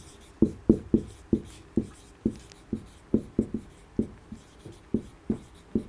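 Marker pen writing on a whiteboard: a run of short squeaky strokes, two or three a second, as words are written.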